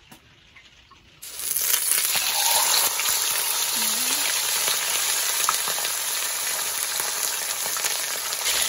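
Whole sea bream laid into hot oil in a non-stick wok: quiet at first, then about a second in a loud sizzle starts abruptly and carries on steadily as the fish fries.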